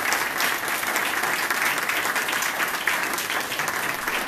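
Steady applause from a room of people clapping, greeting a councillor who has just sworn the oath of office.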